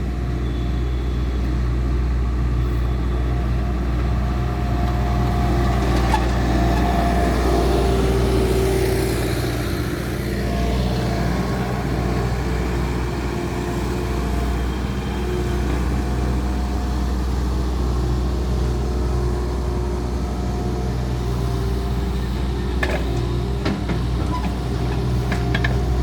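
Diesel engine of a Bobcat S650 skid-steer loader running steadily under work, with a constant low drone. A few sharp knocks near the end.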